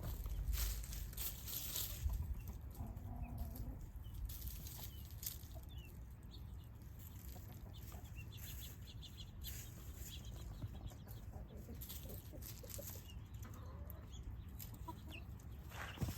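Chickens clucking as they scratch and dig through dry leaf litter, with irregular rustling and short, high peeps scattered throughout.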